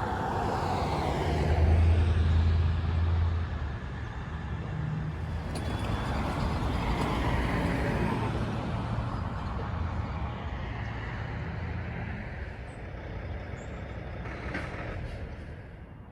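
Road traffic: motor vehicles passing one after another. The loudest pass, about two seconds in, carries a low engine hum, and a second pass swells and fades near the middle.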